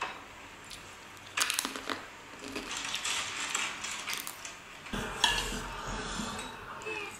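Metal spoon clinking and scraping against a ceramic plate as rice is eaten off it, with sharp clinks about a second and a half in and again just past the middle.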